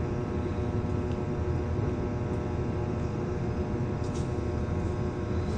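Steady mechanical drone of running equipment, a fan or motor, with a constant hum tone; a faint tick about four seconds in.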